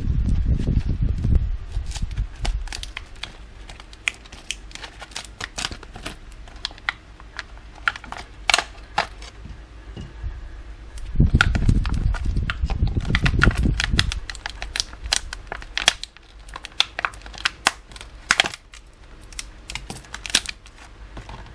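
Stiff clear plastic blister packaging being handled and opened, crackling with many irregular sharp clicks and snaps, with low rumbling handling bumps at the start and again about halfway through.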